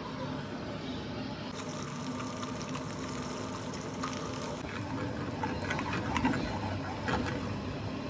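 Peeled hard-boiled eggs frying in a little hot oil in a non-stick frying pan: a steady sizzle, with scattered pops and crackles from about halfway through.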